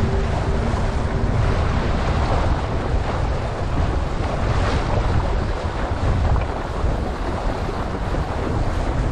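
Wind buffeting an action camera's microphone over the steady rush of water along a windsurf board sailing at speed.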